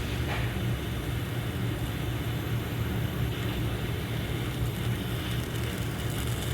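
Handheld butane torch flame running with a steady low roar, heating a waterproof heat-shrink butt connector to melt it shut.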